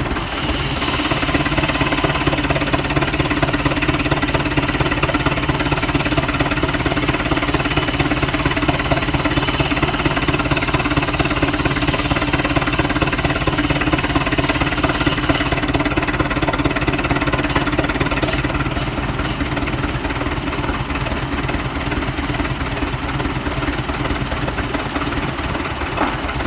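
Avery 40-80 tractor engine running steadily under load with a fast, even knock of firing strokes, belted to a sawmill. A higher whine of the saw cutting white pine runs over the engine until about two-thirds of the way through, then fades as the cut ends, leaving the engine alone.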